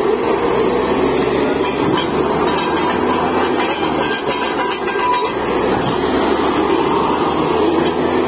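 Truck-mounted borewell drilling rig drilling, its engines and drill running with a steady, loud mechanical noise.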